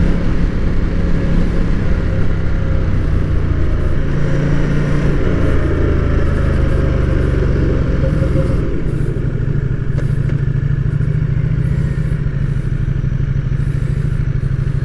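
Ducati Diavel 1260's L-twin engine running under way. The engine note shifts pitch about five seconds in and again near nine seconds, then runs on a little quieter.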